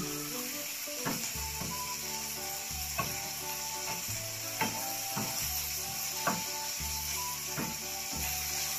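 Wooden spatula scraping and knocking against a nonstick frying pan about once a second while chopped liver and onion sizzle, with background music playing.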